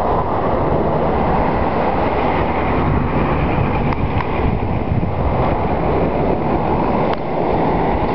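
Wind buffeting the microphone: a loud, steady, low rushing noise with a hiss above it.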